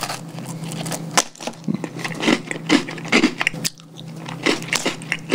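Oreo sandwich cookie being bitten and chewed close to the microphone: a run of short crisp crunches, several a second at times.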